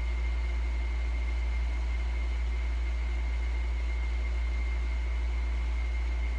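Steady low rumble with an even hiss and a thin, high, constant whine; nothing starts or stops.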